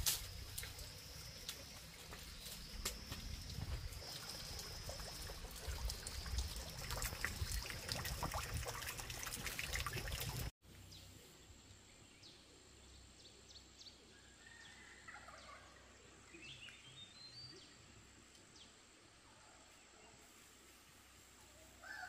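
Poultry calling, with a high wavering peeping line and many clicks and knocks of handling in the first half. Then an abrupt cut to a much quieter stretch with only a few faint chirps.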